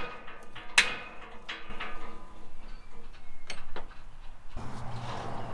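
Scattered sharp knocks and ticks of steel parts and tools being handled while a rusty Ferris wheel is taken apart, with a quick pair of knocks a little past halfway. Near the end a steady low hum with hiss sets in.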